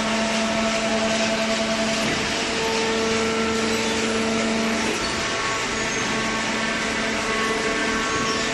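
Hydraulic cardboard baler running: a steady machine hum and whine over a broad hiss, its tones shifting about two and five seconds in.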